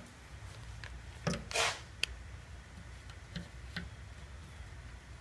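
A few light metallic taps and clicks, with a short scrape about one and a half seconds in, over a low steady hum: an electric solder gun being worked over a solder patch on a steel motorcycle fuel tank.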